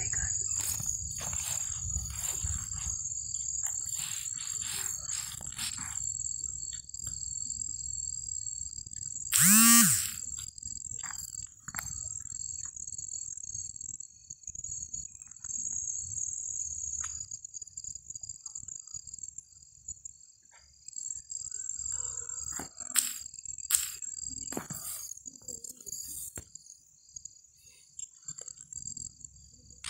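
Night insects trilling steadily: one high continuous trill and a lower, rapidly pulsing one. About ten seconds in, a brief loud sound with a bending pitch lasts about a second, and a few sharp clicks come near the end.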